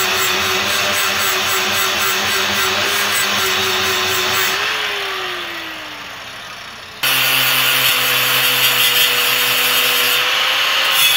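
Corded angle grinder with a flap disc sanding down the wooden axe haft with a steady whine, then switched off about four and a half seconds in and winding down. About seven seconds in it starts again, grinding the end of a steel languette strip with a higher, hissier sound.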